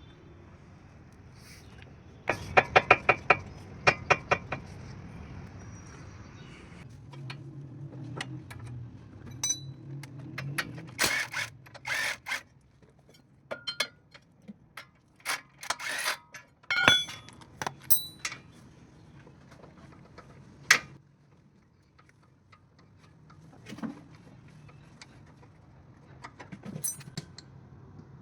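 Metallic clicking and knocking. A quick rattling run of about a dozen clicks about two seconds in is followed by scattered single clicks and knocks over a low hum.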